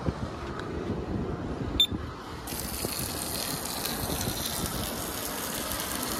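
A click just under two seconds in, then a steady hiss of water jets spraying from the model fire trucks of a push-button water-cannon salute display onto a model airliner.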